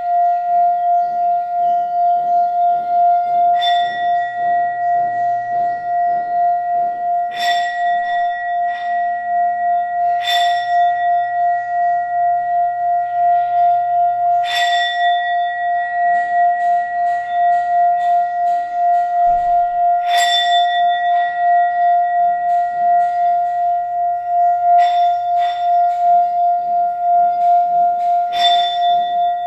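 Tibetan singing bowl ringing with one steady, wavering tone and higher overtones, struck with a mallet every few seconds.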